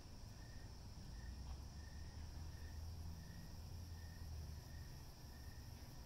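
Faint insect chorus: a steady high-pitched trill, with a short chirp repeating about every half second, over a low rumble.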